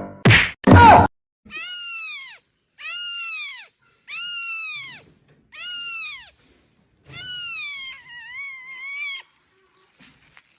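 A cat meowing: five separate high-pitched meows, each rising and then falling, followed by a longer wavering meow. A short loud burst of noise comes just before the first meow.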